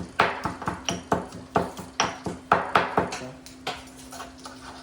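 Quick, irregular sharp knocks of a kitchen utensil on a hard surface, about four a second. They stop about three seconds in, leaving a steady low hum.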